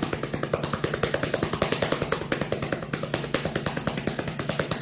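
Hands rapidly patting a cat's rump like a drum: a fast, even run of soft slaps, many to the second.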